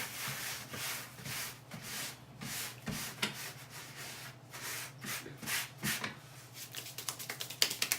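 Snack packaging being handled: a run of short, irregular rustles and crinkles of a wrapper and packets.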